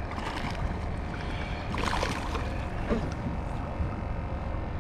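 Wind on the microphone and water against a kayak, with a brief louder rustle or splash about two seconds in.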